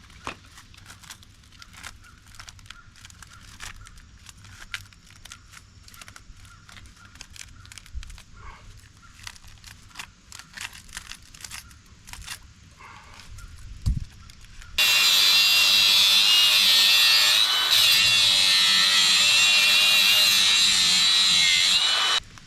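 Faint scattered clicks and taps of handling. Then, about two-thirds of the way through, an angle grinder starts suddenly and cuts into appliance metal for about seven seconds, with a loud high whine that wavers as it bites, before stopping sharply.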